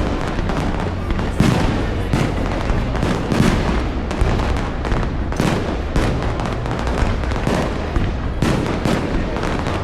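A fireworks display bursting in a fast, irregular run of booms and cracks, about one or two a second, over a continuous rumble.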